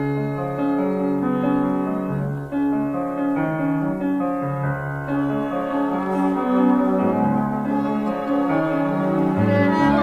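Instrumental soundtrack music with slow, held notes.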